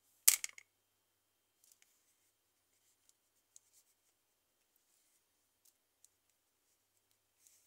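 A brief, sharp clatter of hand handling about a quarter second in, then only faint, scattered ticks as fingers press small plasticine pieces onto the figure.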